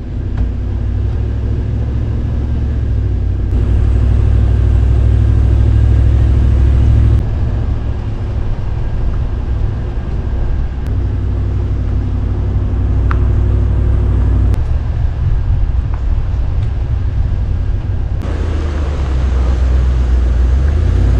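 Car driving, a steady low engine and road rumble with a faint drone above it, dropping a little in loudness about seven seconds in.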